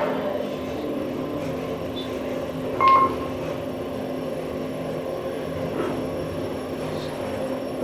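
Kone elevator car riding up, with a steady hum from the car in motion. One short electronic beep sounds about three seconds in as it passes a floor.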